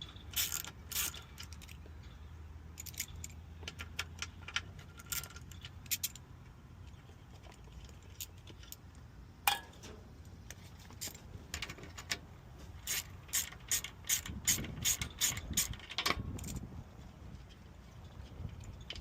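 Hand ratchet clicking in short runs as 10 mm screws holding a semi truck's AC condenser are backed out, with a quicker, steady run of clicks about two thirds of the way through.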